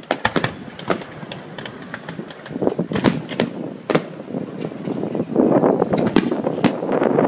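Fireworks going off in quick succession: many sharp bangs and crackles. From about five seconds in, the bursts come thicker and louder.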